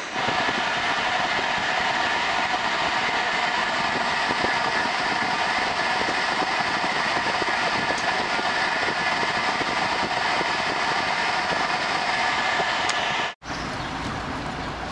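Passenger train running at speed, heard from inside the carriage: a steady rushing noise with rumble. It cuts off sharply near the end, and a quieter, steady train noise follows.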